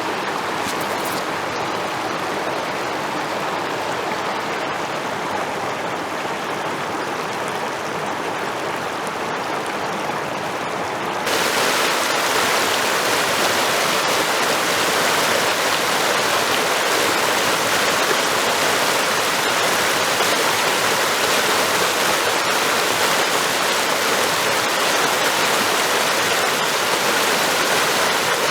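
Running water from a stream or waterfall, a steady rushing. About eleven seconds in it suddenly gets louder and brighter.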